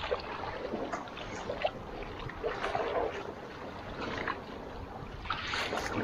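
Rafting paddles dipping and splashing into river water in irregular strokes about a second apart, with water washing along the inflatable raft and a low wind rumble on the microphone.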